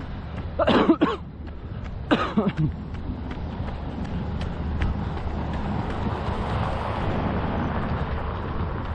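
Outdoor street ambience with a steady low rumble and wind on the microphone. Two brief voice sounds come in the first three seconds, then a rushing noise swells and holds.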